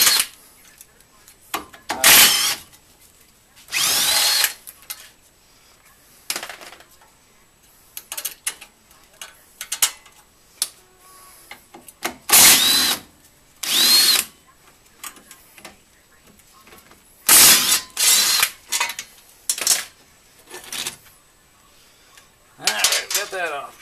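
Cordless DeWalt power tool running in about eight short bursts, each with a rising whine as the motor spins up, undoing the bolts that hold the front brake backing plate and steering arm to the hub. Faint clicks and metal clinks of loose parts come between the bursts.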